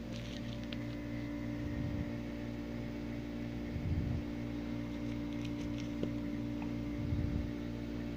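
A steady low hum, with a few soft low thumps about two, four and seven seconds in.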